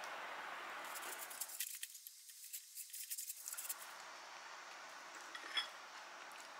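Faint light clicking and rattling of small hard objects being handled: a quick run of clicks through the first few seconds, then a few scattered clicks over a low hiss.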